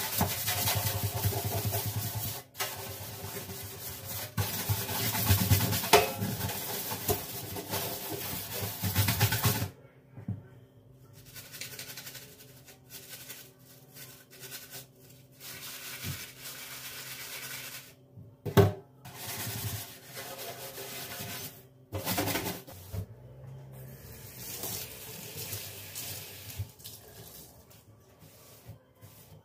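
Hands-on kitchen work: a steady scrubbing sound for about the first ten seconds, then quieter, scattered handling noises with one sharp knock a little past halfway.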